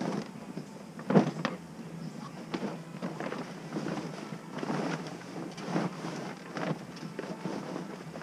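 Irregular knocks and rustling from handling things, with the loudest, sharpest knock about a second in.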